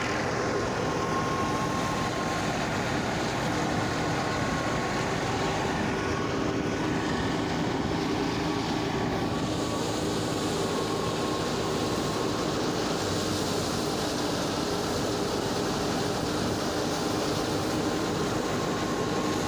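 Tractor-driven wheat thresher running steadily while wheat is fed into it: a constant mechanical din from the tractor engine and the belt-driven threshing drum, with a few steady tones in it. The sound changes slightly about halfway through.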